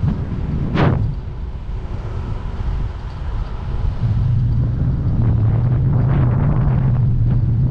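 Wind on the microphone and rumble of an electric-assist bike towing a cargo trailer along the road. There is a sharp knock about a second in, and a steady low hum sets in about halfway through.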